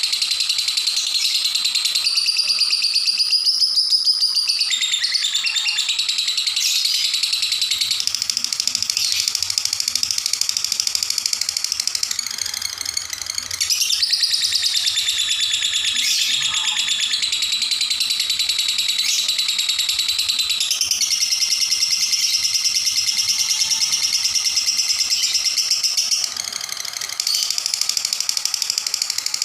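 Lovebird singing its long 'ngekek' trill: a high-pitched, rapid chattering trill that runs on almost without a break. It drops off briefly about 13 seconds in and again near 27 seconds.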